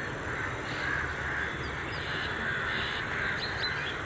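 Birds calling over a steady outdoor background, with a few short high chirps near the end.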